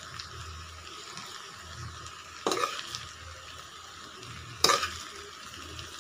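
Steel ladle stirring fried rice in a kadai over the heat, with a low steady sizzle. Two sharp clanks of the ladle against the pan come about two and a half seconds in and again about two seconds later.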